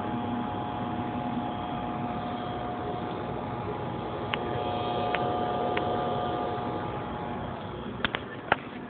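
Steady electric motor hum with a constant whine, from the grow setup's fan and air pump. A few sharp clicks near the end as the phone is handled.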